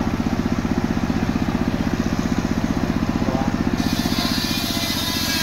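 Engine driving a portable circular sawmill running at a steady speed, with a fast, even pulsing beat. About four seconds in, a high hiss joins it.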